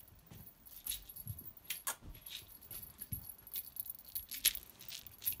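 Scattered light clicks and ticks at irregular intervals, with a faint steady high-pitched tone underneath.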